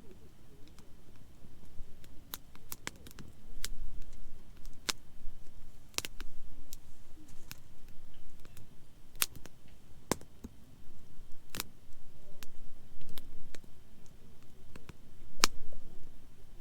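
Wood campfire crackling, with irregular sharp pops and snaps, about twenty of them, over a soft low background of the burning fire.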